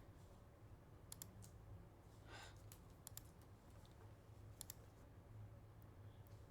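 A few scattered computer mouse clicks and key taps, some in quick pairs, over a low steady hum, while a web page is being navigated and edited.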